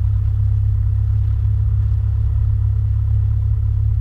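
Cessna Skyhawk's single piston engine running steadily, heard inside the cockpit through the intercom audio as a constant low drone.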